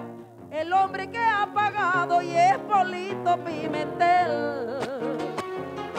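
Venezuelan joropo music: a wavering, gliding sung line over plucked-string accompaniment, with a few sharp percussive strokes near the end.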